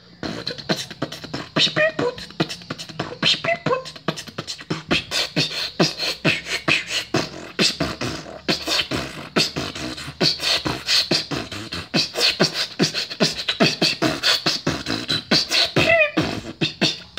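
Fast beatboxing: a dense, unbroken run of sharp percussive mouth hits and clicks, several a second, with a few short wavering pitched vocal sounds mixed in, starting abruptly.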